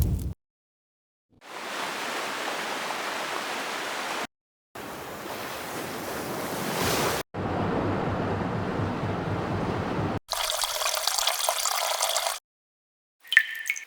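A series of separate nature sound-effect clips, each a few seconds long and cut off abruptly with short gaps between: steady rushing, water-like noise such as a stream or running water. The last clip is higher and more textured, and a short, sharper sound begins near the end.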